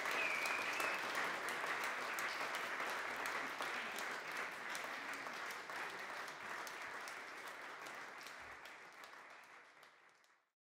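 Audience applause after a live song, many hands clapping with a short high whistle near the start, steadily fading out until it cuts to silence near the end.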